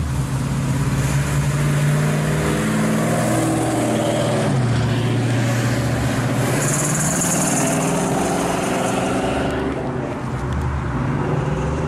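Classic cars driving past one after another. First a 1957 Chevrolet, whose engine drops in pitch as it goes by about four seconds in, then a 1969 Ford Mustang fastback passing with a loud hiss between about six and nine seconds.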